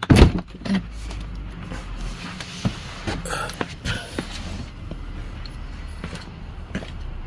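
A loud clunk right at the start, a car door opening, then a steady low rumble with scattered small clicks and knocks.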